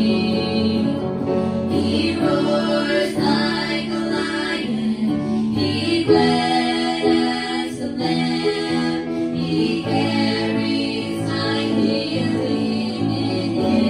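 Two girls and a woman singing a gospel song together through microphones, with instrumental accompaniment under the voices.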